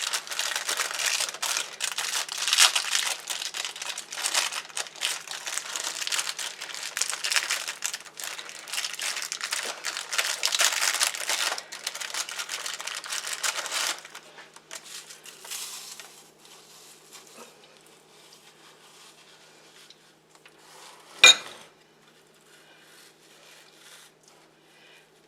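Ritz crackers being crushed into crumbs by hand, a dense crackling and crinkling for about fourteen seconds, then fainter handling. One sharp knock about 21 seconds in is the loudest sound.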